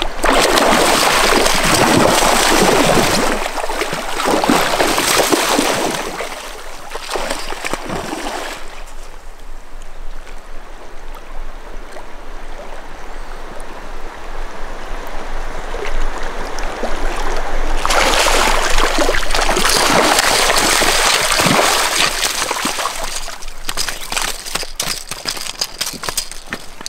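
Shallow river water rushing and rippling over stones, loud at first, easing off in the middle, then swelling again. Near the end, a few sharp crunches of steps on river cobbles.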